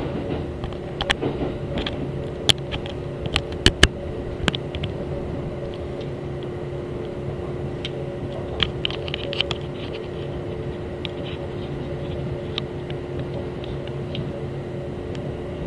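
Kintetsu electric train heard from inside the car: a steady low hum of constant pitch over a rumble, with several sharp clicks and knocks in the first few seconds and a cluster of lighter clicks around the middle.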